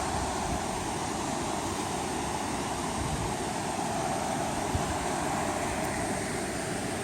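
Steady rushing noise of a waterfall and its water, even and unbroken throughout.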